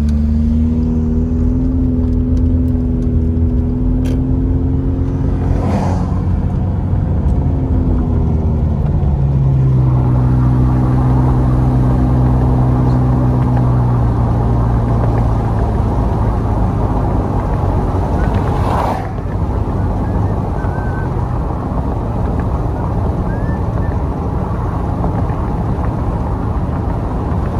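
Car engine heard from inside the cabin, pulling away from a stop and accelerating, its pitch stepping down at a couple of gear changes in the first dozen seconds. It then settles into a steady drone under tyre and road noise at cruising speed.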